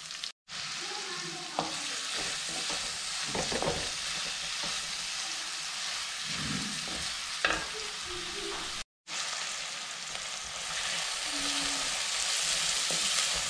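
Sliced onions sizzling in hot coconut oil in a clay pot, stirred with a wooden spatula that scrapes and knocks against the pot. The sound cuts out for a moment twice.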